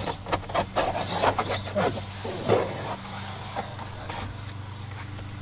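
Rustling and a string of light clicks and taps as a springy rear-window sun shade is handled and pressed into place in a car's rear window, mostly in the first three seconds, over a steady low hum.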